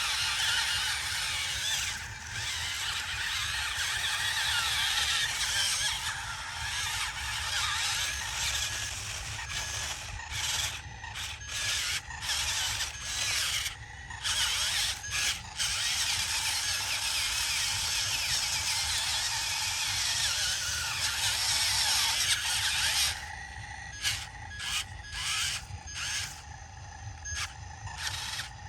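Yigong YG258C crawler excavator running and working: a steady engine rumble and whine under a dense mechanical rattling and grinding, which cuts out briefly several times midway and again near the end.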